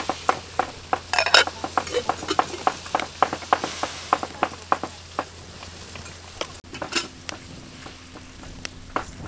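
Dried red chillies frying in a metal wok, stirred and scraped with a metal spatula: quick clicks and scrapes of metal on metal over a sizzle. The stirring is dense for the first five seconds or so, then gives way to a sparser crackling of the chillies in the hot pan.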